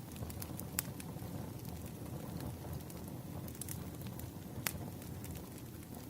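Wood fire burning: a steady low rumble of flames with scattered sharp crackles and pops from the burning logs, the loudest about a second in and near the five-second mark.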